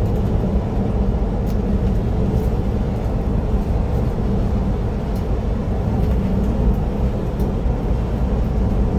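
Steady engine and road noise inside the cabin of a moving Volvo B11R coach with a 450 hp diesel, a low even drone with a few faint ticks.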